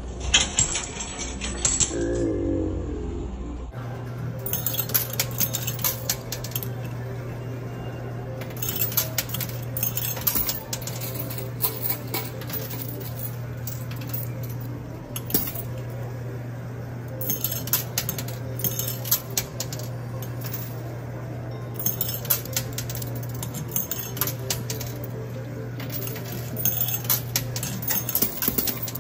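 Quarters clinking and clattering in a coin pusher machine, in clusters every few seconds, over a steady low hum.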